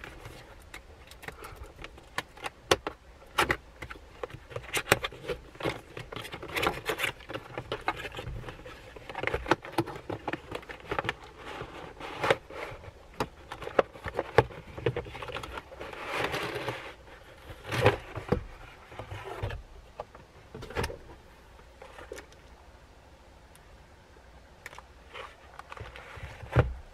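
Cardboard retail box being opened and unpacked by hand: irregular rustling, scraping and clicking of the cardboard, the pulp tray and the plastic-bagged parts inside.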